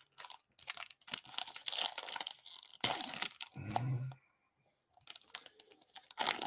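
2019 Bowman baseball cards and their foil pack wrappers being handled and flipped through, with crinkling and rustling in quick irregular bursts. The bursts thin out after a short pause about four seconds in.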